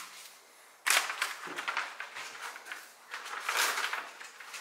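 Plastic bag crinkling and crackling as herring are handled and laid flat in it with gloved hands. It starts suddenly about a second in, with irregular snaps and another burst near the end.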